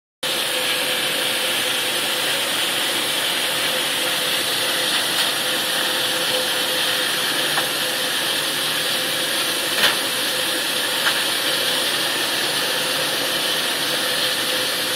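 Steady factory noise: a constant hiss with one steady tone running underneath, from the plant around a sorghum cooking vessel. A few faint clicks, the loudest about ten seconds in.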